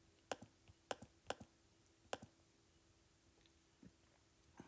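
Faint, sharp taps on a tablet touchscreen, about six, some doubled. They are a button being pressed over and over to subdivide the mesh and raise its polygon count. A faint steady hum lies underneath.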